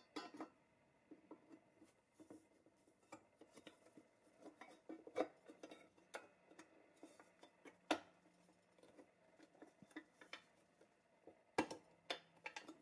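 Scattered light clicks and taps of small hard objects being handled, with a few sharper knocks, one about eight seconds in and a couple near the end.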